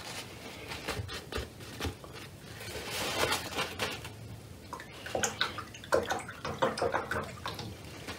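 Wet swishing and scrubbing of a watercolour brush mixing paint and water on a plastic palette, in irregular strokes, with a paper towel handled at the palette in the second half.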